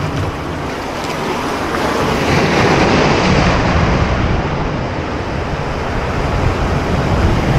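Sea waves surging and breaking against the rocks below, swelling to a louder wash a few seconds in, with some wind on the microphone.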